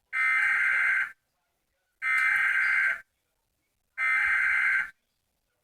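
Emergency Alert System SAME header: three raspy bursts of digital data tones, each about a second long and about two seconds apart, the coded header that opens a new alert, here a tornado warning.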